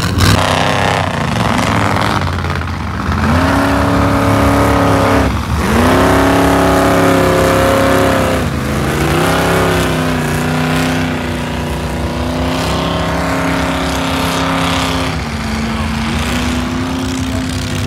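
Mud-bogging truck engine revving hard as it churns through a mud pit. Its pitch climbs and holds high in two long pushes, dropping off briefly about five and eight seconds in, then runs steadier and a little lower.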